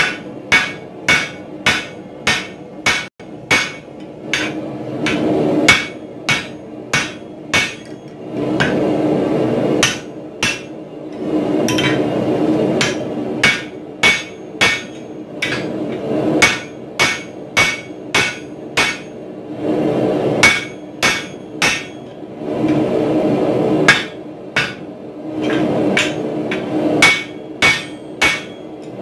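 Hand hammer striking a handled top tool held on a red-hot bar of 4140 steel lying on a cast swage block. The blows come about two a second in runs of four to eight, each with a short metallic ring. A steady rushing noise fills the pauses between runs.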